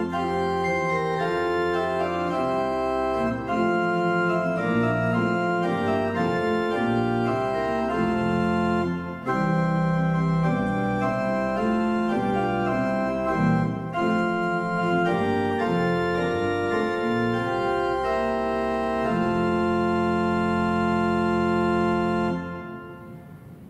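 Pipe organ playing a piece in full sustained chords, ending on a long held final chord that is released about 22 seconds in and dies away in the church's reverberation.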